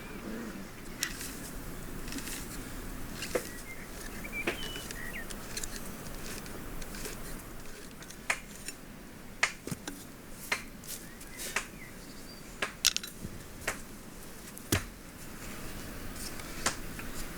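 Irregular sharp taps and clicks of hand work, sparse at first and coming more often in the second half, over a low steady background, with a short chirping call about four to five seconds in.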